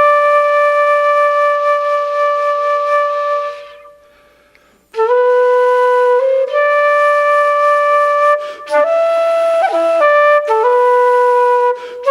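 Solo flute playing a slow melody of long held notes. The sound fades out about three and a half seconds in and, after a gap of about a second, starts again.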